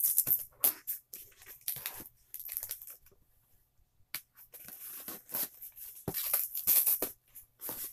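A cardboard box being opened with scissors: irregular snipping, scraping and tearing of packing tape and cardboard. There is a pause about three seconds in, then a louder run of cutting and tearing around six to seven seconds in.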